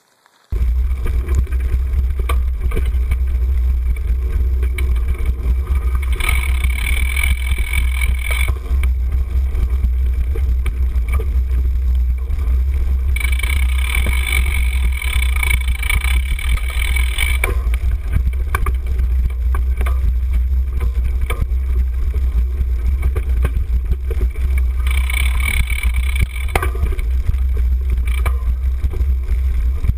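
Cyclocross bike ridden fast over a leaf-covered dirt trail, heard from a handlebar-mounted camera: heavy wind buffeting and rumble on the microphone, with constant rattling of the bike over the bumps. Three stretches of higher-pitched buzzing come in, a few seconds in, around the middle and near the end.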